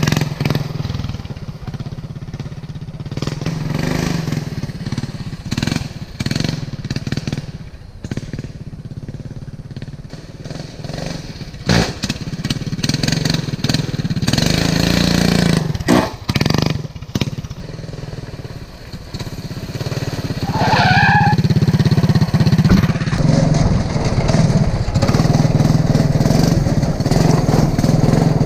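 Racing lawn mower's small engine running as it is ridden, its speed and loudness rising and falling, with a few sharp knocks around the middle. The engine runs louder near the end.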